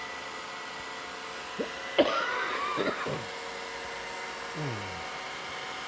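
Robot vacuum cleaner running steadily over carpet, a steady hum with a few held tones. About two seconds in a brief, louder sound with a wavering pitch cuts in for about a second, and a short falling sound follows near the end.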